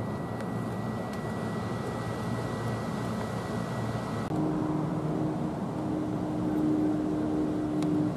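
NJ Transit Arrow III electric multiple-unit train running past, a steady mechanical rumble. The sound changes abruptly about four seconds in, after which a steady low hum is heard.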